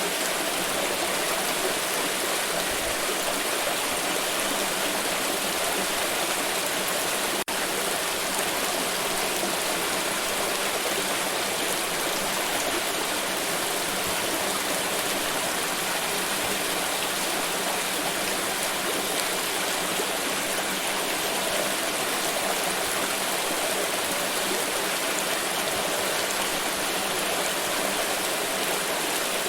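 Flowing water rushing steadily, like a stream, an even sound with no rhythm or break except a split-second dropout about seven seconds in.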